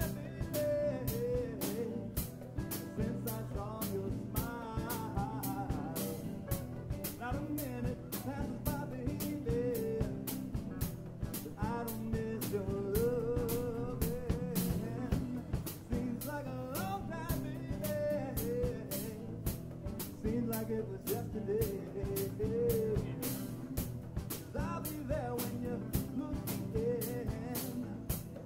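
Live band with a male lead singer, a hollow-body electric guitar, acoustic guitars and a drum kit. The sung melody runs over a steady drum beat.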